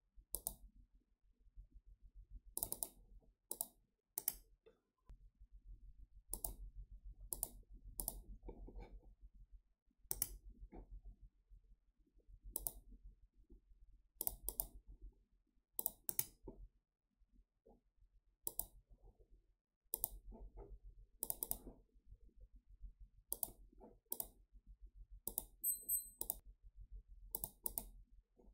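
Computer mouse clicking: single clicks and quick double-clicks every second or two, over a faint low hum.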